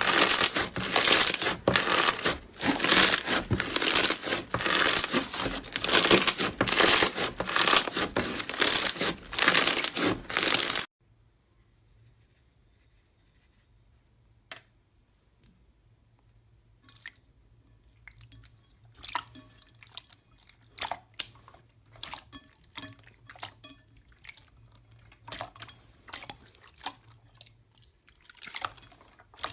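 Slime being squeezed and pressed by hand close to the microphone. For about the first eleven seconds it is a loud, dense crunching and crackling; it then cuts suddenly to quiet, scattered sticky clicks and small wet pops.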